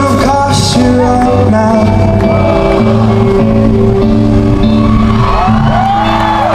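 Live rock band playing, with singing over sustained held notes, loud.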